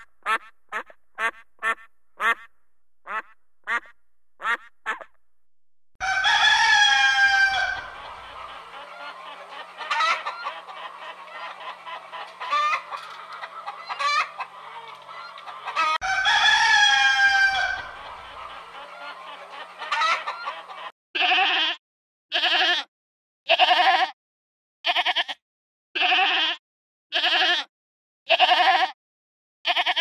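A mallard duck quacking in a quick run of short calls that fade out. Then a rooster crows loudly twice, about ten seconds apart, over hens clucking. In the last third, a goat bleats in an even run of short calls, about one a second.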